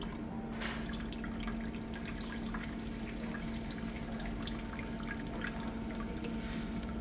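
Water trickling and dripping from a filter tube of an Olympus OER-Elite endoscope reprocessor into a container as the waterline is flushed, over a steady low machine hum.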